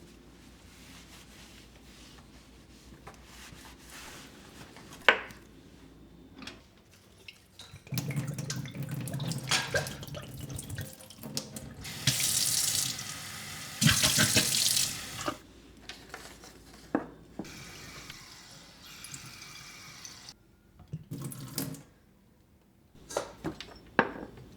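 Water running from a tap into a sink, coming on in spurts, strongest twice in the middle for about a second each, with sharp knocks and clinks of items being handled around it.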